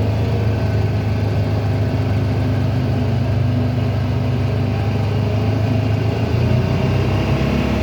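Honda Pioneer UTV engine running steadily while driving, heard from on board. The engine note changes about six seconds in, as a deeper low hum joins.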